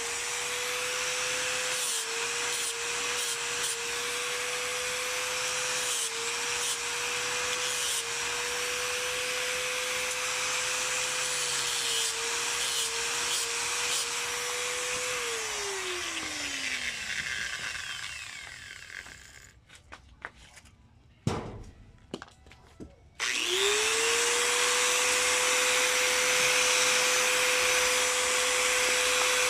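Angle grinder with a flap disc grinding water buffalo horn, its motor pitch dipping briefly under load. About halfway through it is switched off and winds down, falling in pitch. After a few quieter seconds with a couple of knocks, it is switched on again and spins up to a steady whine.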